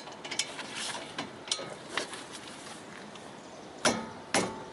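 Hand ratchet and socket working a brake caliper bolt, with scattered metallic clicks and knocks, a quieter stretch, then two louder clanks near the end.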